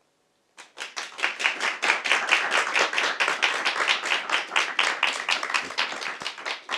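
Audience applauding, starting suddenly just over half a second in and holding steady, easing off a little near the end.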